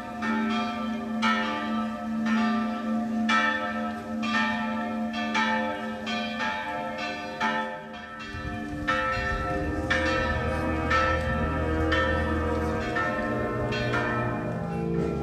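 Church bells pealing, several bells struck in irregular overlapping strokes, each one ringing on. About halfway through, low held notes join beneath the bells.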